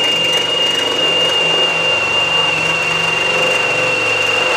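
Cordless Milwaukee drill running steadily, its hole saw cutting through the copper wall of a hot water cylinder, with a steady high-pitched ring over the motor.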